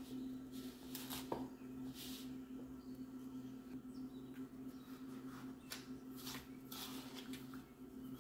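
Crumbly flour-and-butter mixture being cut and scooped in a bowl with a pastry blender and a measuring cup: irregular soft scraping strokes over a steady low hum.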